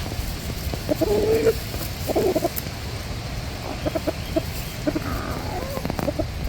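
Cornish Cross meat chickens clucking in short calls, a couple about one and two seconds in and a run of brief ones later on, over a steady low rumble.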